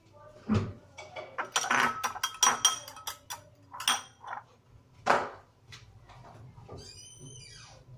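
Metal fork clinking and knocking against a ceramic bowl as an egg is beaten, in quick irregular strikes that are thickest in the first half. Near the end comes a brief high-pitched squeal that falls in pitch.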